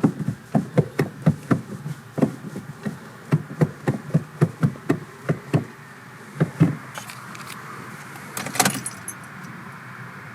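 A quick, uneven run of light taps or knocks, about three to four a second, stopping about two-thirds of the way through. It is followed by a faint steady hiss and one brief rattle near the end.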